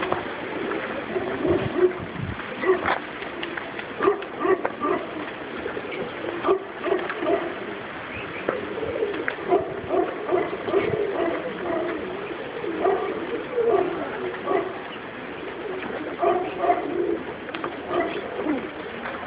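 A loft full of domestic pigeons cooing, with many short, overlapping coos throughout.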